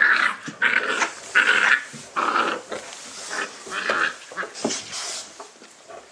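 Dogo Argentino puppies whining and squealing while they nurse, a string of short high cries, loudest over the first two or three seconds.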